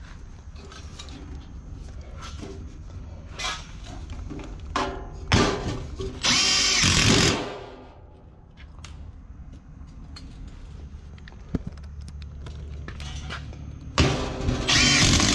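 Cordless Makita impact driver driving screws into sheet metal, with two runs of about a second each, one about six seconds in and another near the end. Light knocks and clatter of handled sheet metal come in between.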